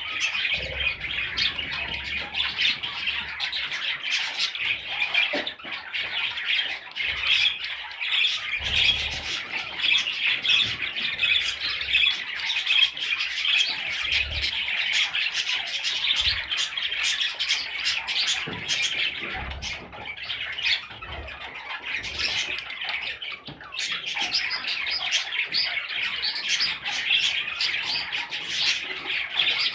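Budgerigar chicks squawking and chirping in a dense, continuous chatter.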